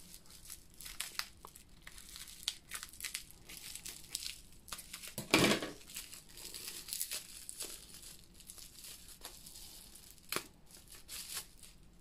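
Clear plastic wrapping crinkling and crackling as it is cut open with scissors and pulled apart by hand: irregular small crackles, with a louder rustle about five seconds in.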